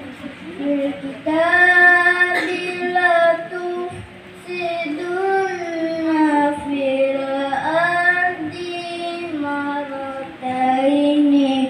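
A boy reciting the Quran in melodic tilawah style, holding long ornamented notes that waver and glide up and down. The recitation comes in about a second in, with a short breath pause about four seconds in.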